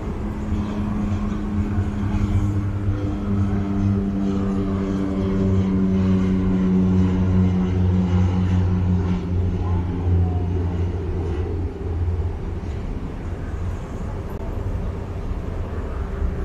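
A passing engine: a steady droning hum that slowly drops in pitch and fades after about twelve seconds, over street background noise.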